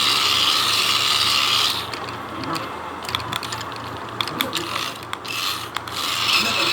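Small electric motor and plastic gearbox of a toy robot RC car whirring for a couple of seconds, then a run of rapid clicks and ratcheting, then a short whir again near the end.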